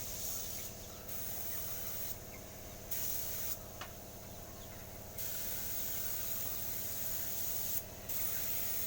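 Spray paint hissing in about five bursts with short breaks, the longest lasting a couple of seconds, over a steady low hum.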